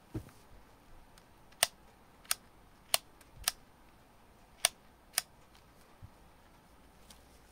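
Six sharp clicks, spaced about half a second to a second apart, from a Canon iVIS HF R30 camcorder as fingers work a small part beside its lens. A soft low thump of handling comes just after the start.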